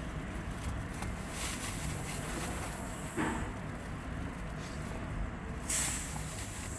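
Steady low rumble, like a vehicle at rest with the sound heard from inside the cab, with a few brief rustles and a short hiss near the end.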